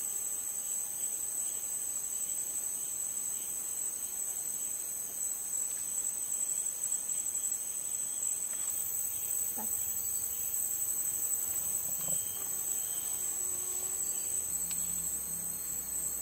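Rainforest insect chorus: a continuous, steady, high-pitched shrill drone at two close pitches.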